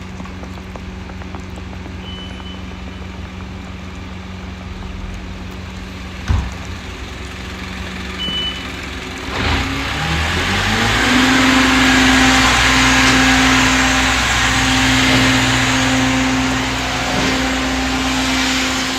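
Car engine and road noise: a steady low hum, then about halfway through the engine pitch rises as the car speeds up and settles into a louder, steady hum with more road and wind noise.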